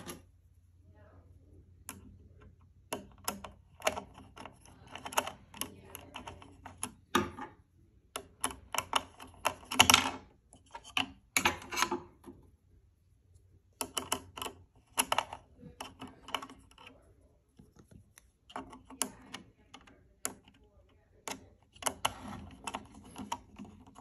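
Irregular clicks and taps of fingers and wires handled against the metal mounting plate and plastic housing of a fire alarm speaker strobe as wires are fed through it, coming in clusters with short pauses.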